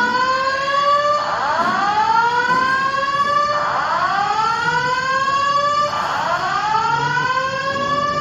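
Airport fire alarm sounding its evacuation signal: a loud rising whoop tone, each sweep gliding up in pitch and starting over about every two and a half seconds.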